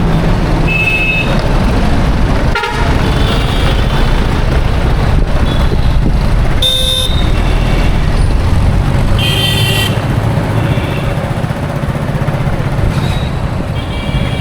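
Busy road traffic: engines rumbling steadily as vehicles pass, with several short horn honks over it, the two loudest about seven and nine and a half seconds in.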